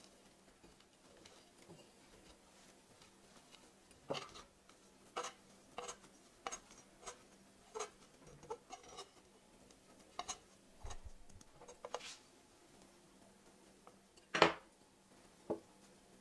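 Scattered light clicks and taps of a metal spatula against a wooden cake stand while chocolate shavings are pressed onto the cake's sides, with one louder knock near the end.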